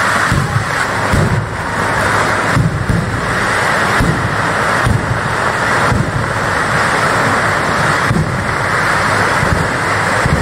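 Fireworks going off: a rapid series of low booms and bangs over a dense, continuous crackling hiss.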